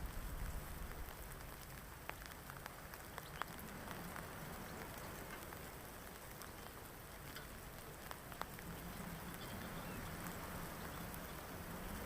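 Light rain falling steadily: a soft, even patter with scattered individual drops ticking through it. A few low thumps come right at the start.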